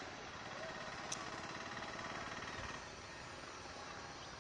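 Steady outdoor background noise, with a faint rapid repeating note that stops nearly three seconds in and a single faint click about a second in.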